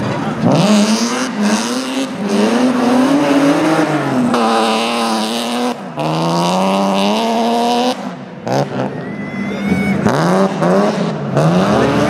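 BMW E36 3 Series rally cars' engines revving hard through a slippery mud slalom. The engine note climbs and falls again and again as the cars slide and the drivers shift and lift, and it breaks off abruptly several times between short clips.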